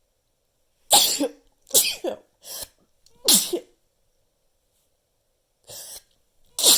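A person sneezing in a rapid fit: several loud sneezes in quick succession, a pause of about two seconds, then a softer one and a last loud sneeze near the end.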